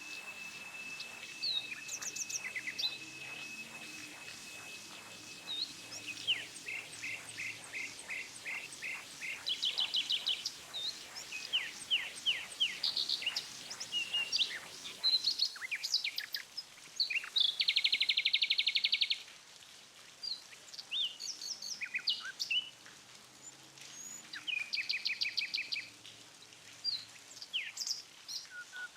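Several birds singing: a mix of short chirps, quick rapid trills and whistles, overlapping throughout. A thin steady high tone holds through the first six seconds or so.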